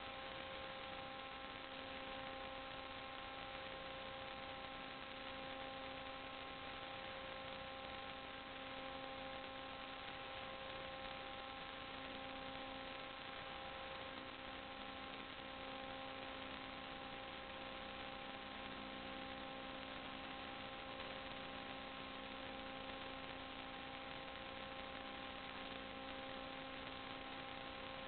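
Steady electrical hum and hiss, several fixed tones over a constant hiss with no change or events: the noise floor of the sewer inspection camera's recording electronics.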